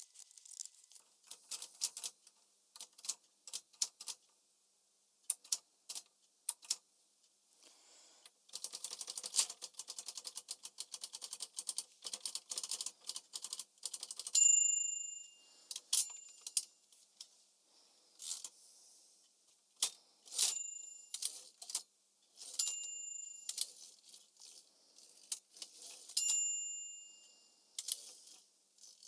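Smith-Corona Calypso portable typewriter being tested: scattered key strikes, then a fast run of clicking in the middle. After that the carriage's bell rings briefly about six times between bursts of typing.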